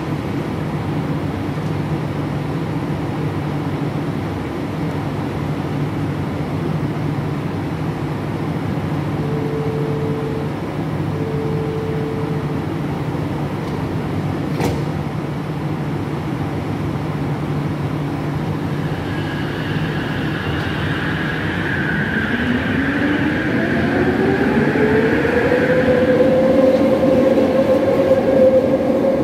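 Bombardier Innovia ART 200 metro train standing at the platform with a steady low hum, with two short beeps near the middle. About two-thirds of the way through it pulls away: its linear-induction-motor drive gives a whine that rises in pitch and then holds steady as the train passes. The recording is somewhat distorted.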